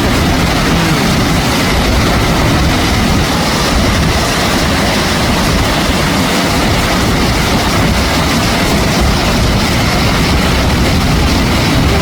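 Steady, loud rush of river water running over rocks.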